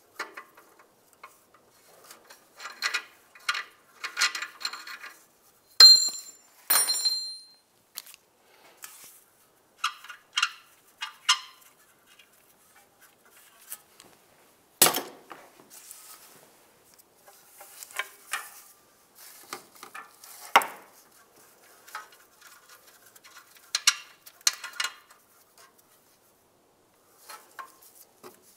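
Ratchet clicking on a 22 mm oxygen sensor socket and metal clinking as an oxygen sensor is unscrewed from the exhaust, in short bursts with pauses. Two ringing metal clinks come about six to seven seconds in, and a louder knock about fifteen seconds in.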